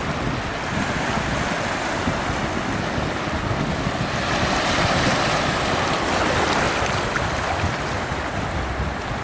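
Ocean waves washing on the shore, a steady rush that swells as a wave breaks in the middle and then eases off.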